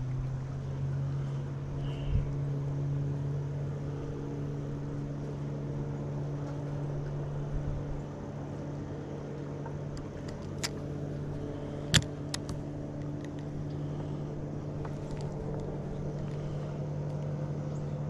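A boat motor running with a steady low hum. A few sharp clicks or knocks come about two-thirds of the way through.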